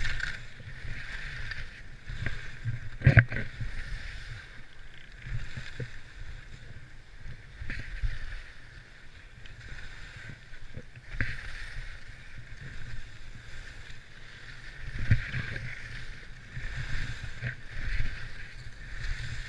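Skis sliding and scraping over packed snow while the skier descends, with wind rumbling on the camera microphone and a sharp knock about three seconds in and another near fifteen seconds.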